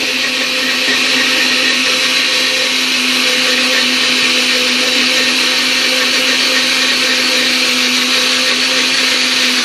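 Countertop blender running at a steady speed, blending a smoothie: a loud, even motor hum at one fixed pitch under the whir of the blades.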